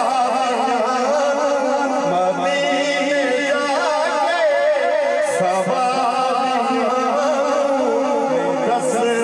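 A man singing a naat into a microphone, unaccompanied devotional chanting in long, wavering melismatic held notes.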